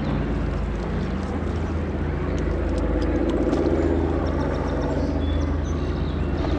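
An engine running steadily at an even speed, a low drone with a constant pitch.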